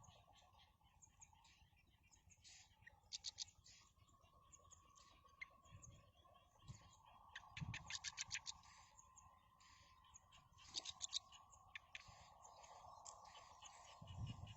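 Birds chirping faintly: short runs of quick, high chirps, about eight a second, come three times, with scattered single chirps between.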